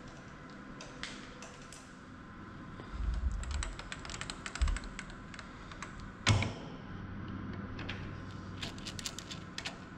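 Light metal clicks and clinks of a threading tool holder being handled and set on a lathe's quick-change tool post, with a few dull thumps and one heavier knock about six seconds in.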